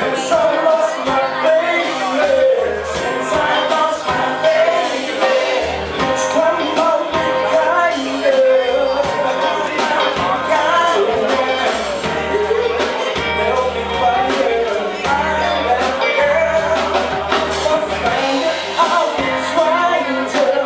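Live band playing a Motown-style soul song with a lead vocal over bass and drums, picked up in a room.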